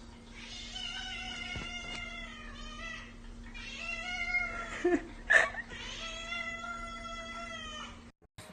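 Domestic cat meowing in three long, drawn-out calls, with a short sharp sound about five seconds in.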